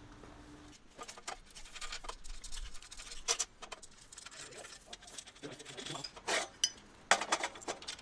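Irregular metal clicks, scrapes and rattles as the steel welding cart's handle and its clamp lever are worked by hand, with a few sharper knocks about three, six and seven seconds in.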